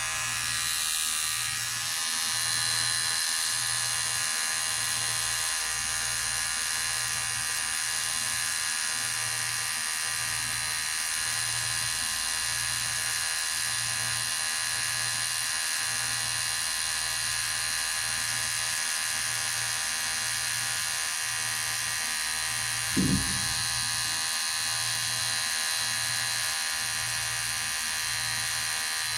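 Electric hair clipper running steadily with a constant high buzz and a low hum that pulses a little faster than once a second. One short low thump about three-quarters of the way through.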